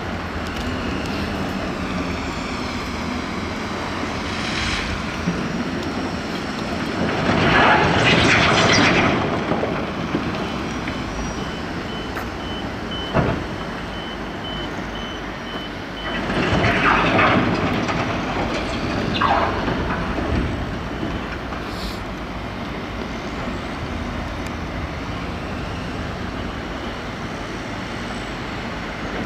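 Diesel articulated dump truck running as it raises its bed to tip a load of rocks, with two loud rushing noises of about two seconds each, a quarter and a half of the way through. Between them a reversing alarm beeps steadily for about six seconds.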